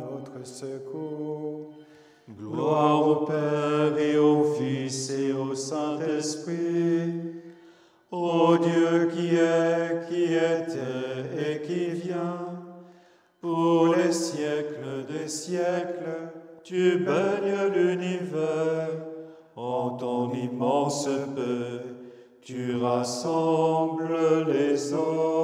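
Capuchin friars chanting the office in low male voices: long sung phrases on sustained notes, about six of them, each a few seconds long with brief pauses for breath in between.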